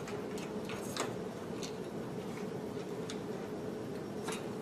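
Soft, irregular clicks and crinkles of plastic feeding-pump bags and their tubing being handled and hung on an IV pole hook, over a faint steady hum.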